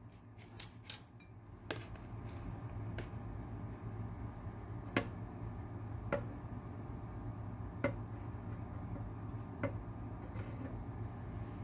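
Metal tweezers clicking sharply now and then, about six separate clicks spaced irregularly, over a steady low hum.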